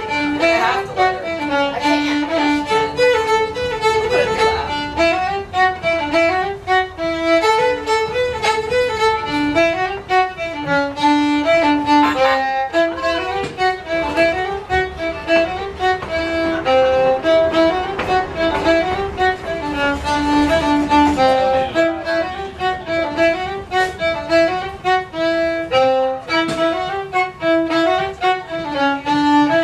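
Music: a tune of quick, short notes, played on a fiddle.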